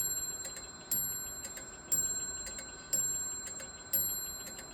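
French mantel clock striking the hour: five evenly spaced strikes about a second apart, each ringing on and fading before the next, with the movement ticking softly between them. This is part of a run of nine hour strikes, counted to set the hour hand to match the strike.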